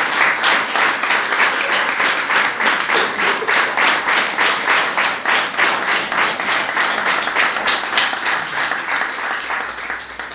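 Audience applauding, a stream of hand claps that thins and fades away near the end.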